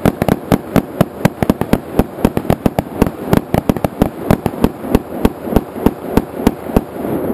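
Rapid gunfire from several rifles shooting at once, many shots a second in an uneven, overlapping string. The firing stops near the end, leaving an echo dying away.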